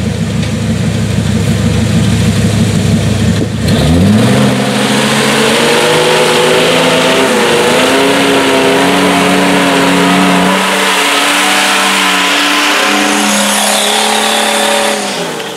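Old Jeep's engine under heavy throttle climbing a muddy rut. It runs low and rough at first, revs up sharply about four seconds in and holds high revs with small shifts until it drops off at the very end, while the big knobby tyres spin and throw mud.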